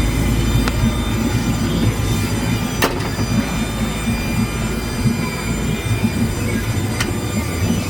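Twin Volvo Penta 380 boat engines running with a steady low drone, with a few sharp knocks, the sharpest about three seconds in.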